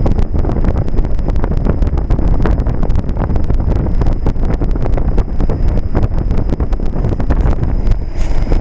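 Trane XL1800 heat pump's outdoor unit with its compressor stopped and a steady rush of air buffeting the microphone. The compressor pause is a sign of the unit either shutting off or switching between its compressor stages.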